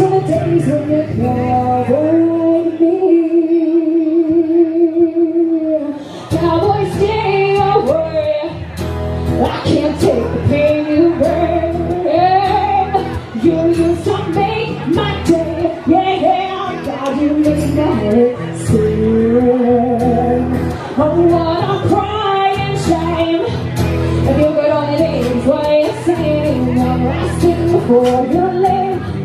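Live band playing a song with a singing voice. A long held note with vibrato comes in the first few seconds, then the band and the melody carry on over a steady beat.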